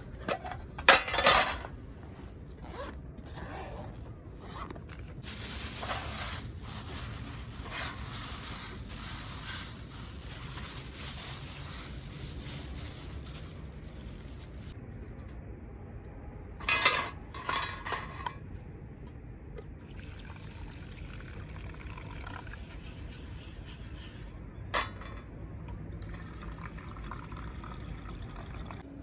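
Liquid being poured, with a few sharp knocks and clinks about a second in, again past the middle, and once near the end.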